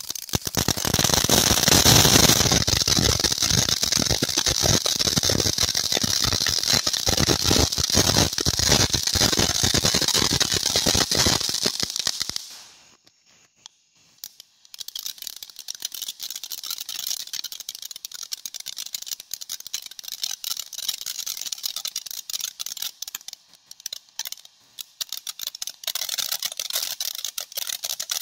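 Frisky Starburst consumer firework fountain spraying sparks with a dense crackle and hiss. The loud burn dies away about twelve seconds in, and after a brief near-silent lull a quieter, more broken crackling phase starts up.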